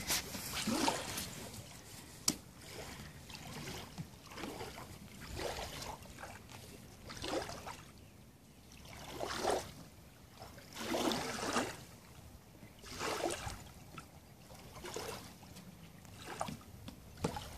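Small waves lapping and sloshing against the wooden dock, in irregular swells every couple of seconds, with a few faint knocks.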